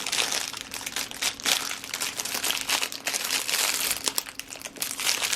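Packaging crinkling and rustling in irregular crackles as the item in an unboxing is handled and unwrapped.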